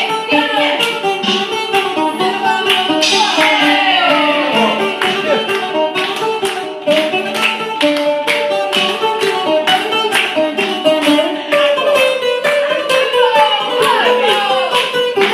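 Live band music: a bouzouki plucking a quick melody over a steady beat from an electronic drum kit.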